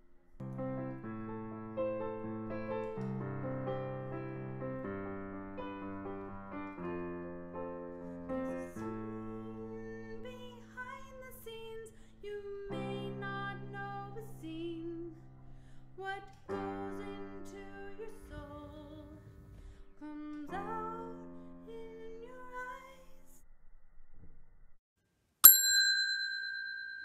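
Slow music of held keyboard chords with a melody over them, which stops shortly before the end. About 25 seconds in, a single loud notification-bell ding sound effect rings out and fades away.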